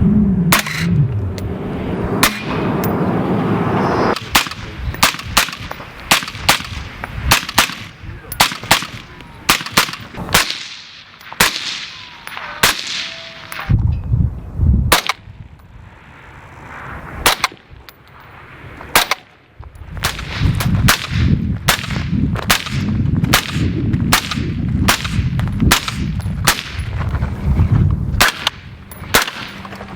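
A long string of suppressed rifle shots through a Dead Air Sierra-5 silencer, fired at irregular intervals, some in quick succession, with a short ring-off after several of them. A low rumble sits under the shots through the second half.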